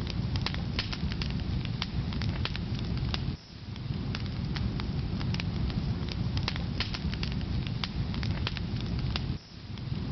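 Firewood burning in a fireplace: steady crackling with frequent sharp pops over a low rumble of the flames. The sound briefly drops out twice, about three and a half and nine and a half seconds in.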